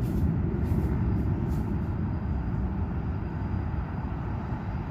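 Steady low rumble of outdoor city background noise, with a few faint high ticks in the first second and a half.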